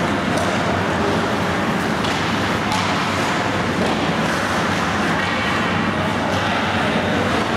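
Steady rushing noise of an indoor ice rink during a hockey game, with a few faint clacks of sticks or puck and players' voices mixed in.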